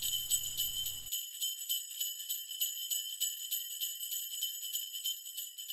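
Jingle bells shaken fast and steadily, a continuous bright jingling.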